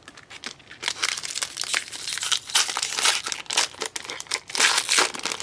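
Crinkling of a trading-card pack wrapper being handled and torn open: a dense, irregular crackle that thickens in the middle.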